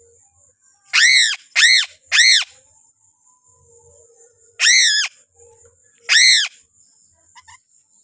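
Piping crow (Sulawesi 'gagak sule') giving harsh, loud calls: three in quick succession, then two more spaced about a second and a half apart, each call rising and falling in pitch.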